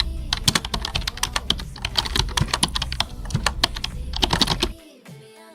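Rapid, irregular clicking of fast typing on a keyboard, which stops about three quarters of the way through; faint steady tones follow.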